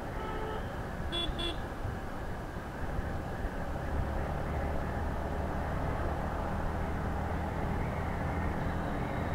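Yamaha MT-15's single-cylinder engine running in sixth gear at about 55–65 km/h under wind and road noise. The low engine note grows stronger about four seconds in as the bike speeds up. A vehicle horn sounds briefly at the start, and two short high chirps come just after a second in.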